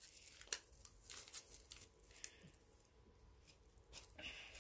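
Scissors cutting a gauze pad: a few faint snips and light rustling of the pad, the sharpest snip about half a second in.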